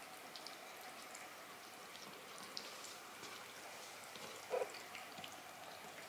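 Bengal cats eating, faint wet chomping with many small clicks, and a brief louder sound about four and a half seconds in.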